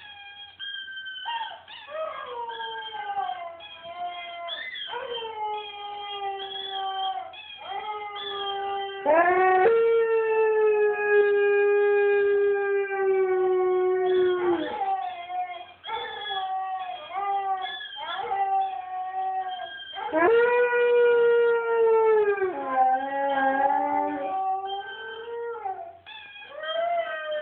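Siberian husky howling: a run of howls and shorter whining calls with brief breaks between them. Two of the howls are long held notes of several seconds each, in the middle and about two-thirds of the way in, each dropping in pitch at the end.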